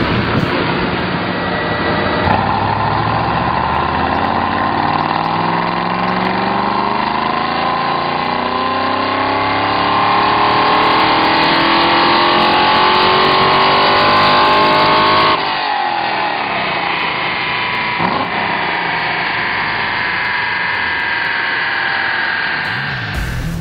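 2010 Camaro SS 6.2-litre V8 through a Doug Thorley cat-back exhaust, run up under load on a chassis dyno: the engine note climbs steadily in pitch for about thirteen seconds. It breaks off suddenly about fifteen seconds in, then climbs again more slowly.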